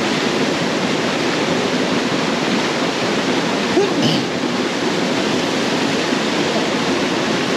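Small waterfall rushing steadily over rocks into a stream.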